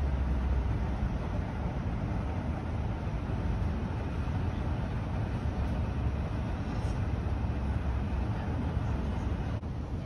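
Steady airport terminal background noise: a deep, even rumble with a wash of hiss above it.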